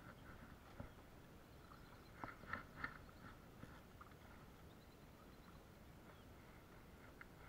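Near silence, with a few soft clicks and taps about two to three seconds in from a spinning rod and reel being handled while the line is reeled in.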